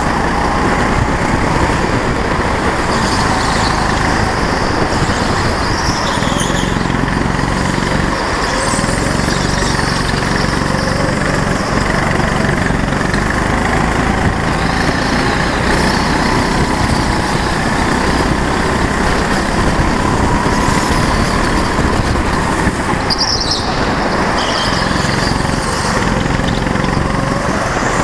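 Go-kart engine running at speed, heard close from the kart itself, its note rising and falling with the throttle.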